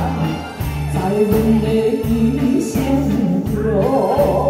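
Woman singing a Taiwanese-language ballad into a microphone over live band backing of drums, electric guitar and keyboard, with a steady beat; her wavering held voice comes back strongly near the end.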